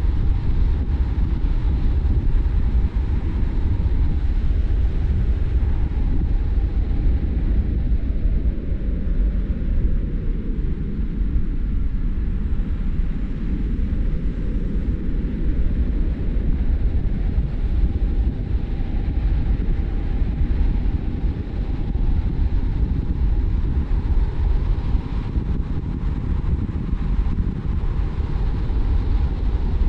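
Steady low road and engine noise of a car driving, with no breaks or distinct events.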